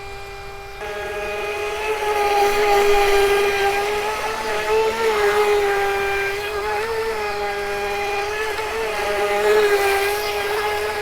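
Electric motor of an RC racing boat whining as it runs on the water, the pitch wavering up and down with the throttle; it grows louder about a second in as it speeds up.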